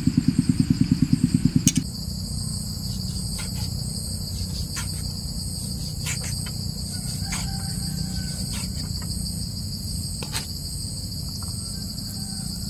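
Knife cutting raw pork on a thick wooden stump chopping block, a sharp knock every second or so, over a steady high-pitched insect drone. For the first two seconds a loud, rapid, low throbbing of about ten beats a second drowns the rest, then stops.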